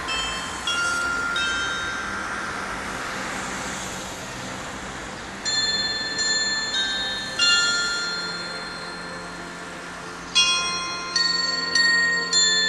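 A small set of tuned chime bells playing a slow melody, each bell struck once and left to ring and fade. The notes come in short phrases of three or four strikes with pauses of a few seconds between them.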